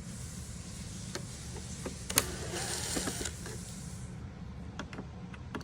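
Screws being backed out of dashboard trim panels: a faint whir with scattered clicks and taps of the tool and screws, one sharper click about two seconds in.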